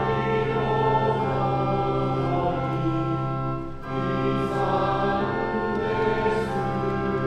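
A choir singing a hymn in slow, held chords over a steady low note, with a short break for breath about four seconds in.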